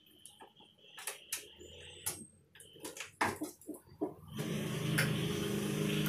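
Small metal clicks and scrapes of a screwdriver turning out the screws of a door latch plate. About four seconds in, a steady motor hum rises and becomes the loudest sound.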